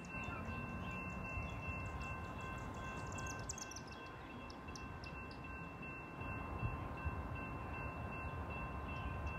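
Faint steady ringing of several high pitches held together, with quick high chirps around the middle; the ringing stops abruptly at the end.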